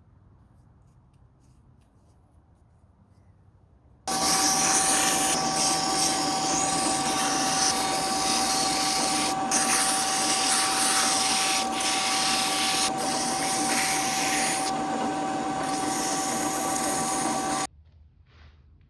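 Electric power tool running steadily at one speed for about thirteen seconds, switched on about four seconds in and cutting off abruptly near the end, with a steady whine over a hissing noise.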